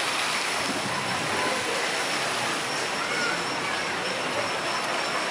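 Steady rushing and churning of water in a log flume ride's channel and splash pool, an even wash of noise with no rhythm.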